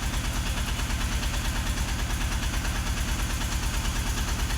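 Mahindra Jeeto BS6 diesel engine idling steadily with an even low pulsing, warming up to the temperature needed for a DPF regeneration.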